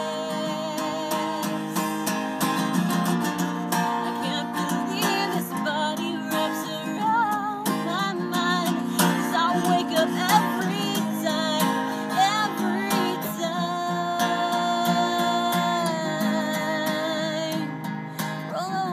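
A woman singing a slow melody while strumming chords on a cutaway acoustic guitar.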